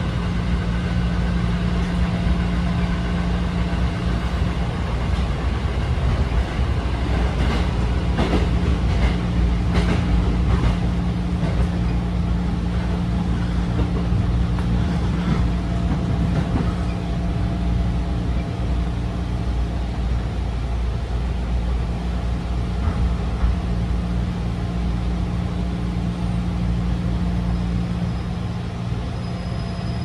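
Running noise of a JR 211 series electric multiple unit heard inside the passenger car: a steady low rumble of wheels on rail under a constant hum, with a run of sharp clicks about seven to eleven seconds in.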